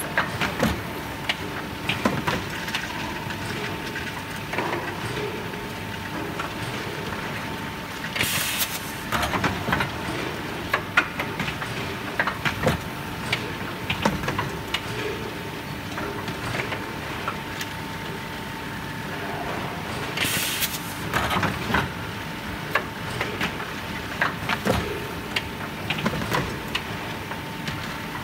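Pneumatic battery leak tester working on an assembly line: a steady machine hum with a high tone, frequent clicks and knocks of the mechanism, and two short hisses of compressed air, about eight seconds in and again about twenty seconds in.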